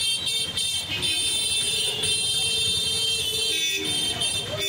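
Vehicle horns honking in busy street traffic: several short toots, then one long held honk lasting a couple of seconds, then more short toots near the end, over general street noise.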